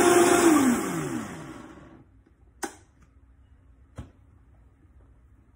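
Vitamix blender motor running, then switched off: its pitch falls as it spins down over about a second and a half. Then two sharp knocks about a second and a half apart, the first louder, as the blender jar is handled.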